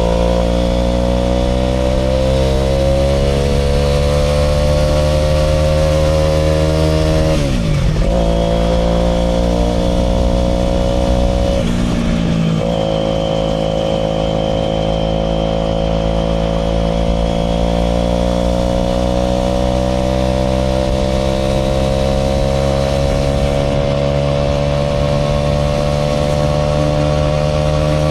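Aprilia RS4 125's single-cylinder four-stroke engine running under way, its pitch climbing slowly. Twice, about eight and twelve seconds in, the pitch dips sharply and recovers, as gears are changed.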